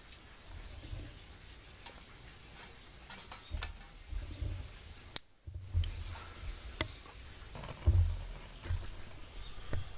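Twigs being fed and shifted in an Emberlit stainless-steel wood-burning backpack stove: scattered clicks, knocks and scrapes of wood against the sheet-metal stove.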